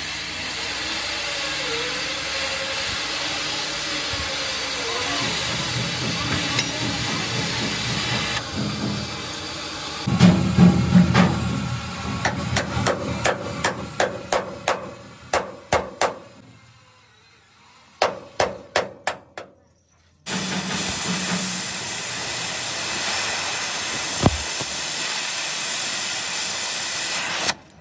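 A steady hiss, then a run of hammer blows on metal at about two to three a second, a short pause, five more blows, and the steady hiss again.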